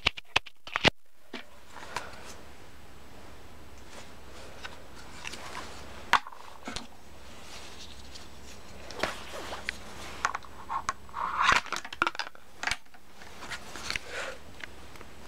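Grey plastic toy viaduct pieces being handled: scattered light clicks and knocks of hard plastic, with a sharp click about six seconds in and a busier run of clicks and rustling in the second half.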